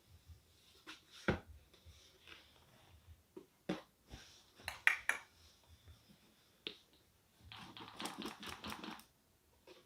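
Purchase packaging handled during an unboxing: scattered light knocks and taps of a box being opened, then about a second and a half of rustling near the end.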